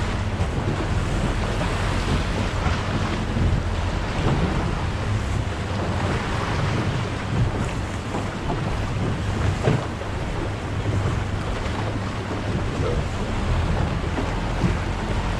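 Wind buffeting the microphone and waves washing against a small fishing boat, with the boat's engine running steadily underneath as a low hum.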